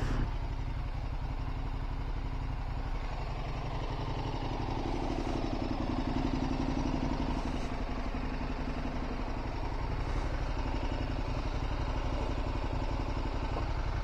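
Motorcycle engine running steadily at low revs as the bike is ridden slowly, slightly fuller in the middle.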